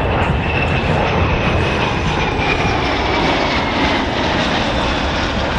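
Engines of two EA-18G Growler jets and an F4U Corsair flying past in formation: a loud, steady rush of engine noise with a faint whine that slides slowly down in pitch.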